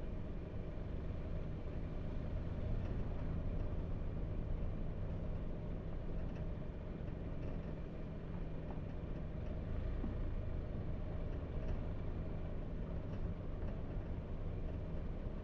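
Steady low rumble of a car driving slowly: engine and tyre noise.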